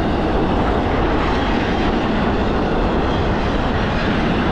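Empty intermodal cars of a freight train rolling past, a steady noise of steel wheels on rail.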